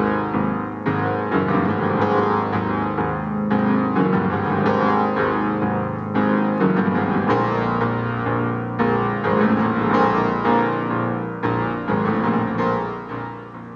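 Synclavier II digital synthesizer playing a chordal keyboard passage with a piano-like tone, fading out near the end.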